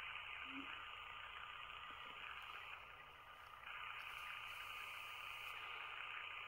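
Faint steady hiss of room tone with no distinct event; it dips slightly for about a second, around three seconds in.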